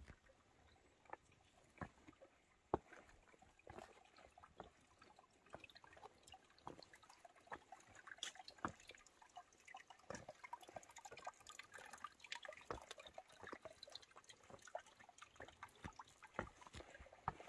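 Faint trickle of a small brook running among rocks, with many scattered light clicks and taps.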